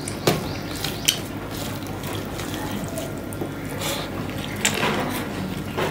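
Eating sounds: wet chewing of rice eaten by hand, with fingers squishing and mixing rice on a stainless steel plate. A few sharp clicks stand out, about four in all.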